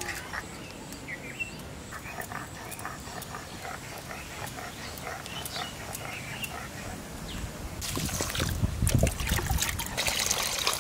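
Water poured in a stream onto raw rice in a metal pot, splashing and rushing, loud, starting about eight seconds in. Before it, short animal calls over a quiet background.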